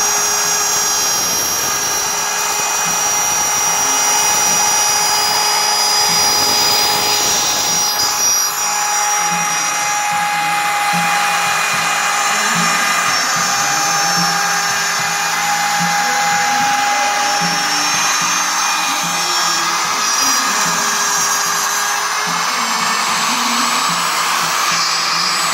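CNC machine running: a steady spindle whine with stepper-motor tones that shift pitch every few seconds as the axes change speed.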